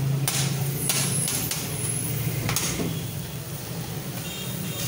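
Metal spatulas scraping and clinking against a large steel pan as grated-carrot halwa is scooped out onto plates, a few sharp scrapes in the first half, over a steady low hum.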